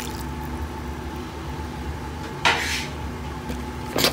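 A metal spoon scrapes against a pot of mashed potatoes once, briefly, about two and a half seconds in, and clicks against it near the end, over a steady low hum.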